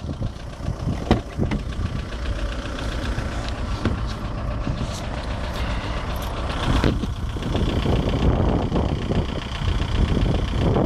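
VW 1.9 TDI ASV four-cylinder turbodiesel running, with irregular sharp knocks over the engine rumble. It gets louder about seven seconds in. The knock is traced to the engine's bottom end.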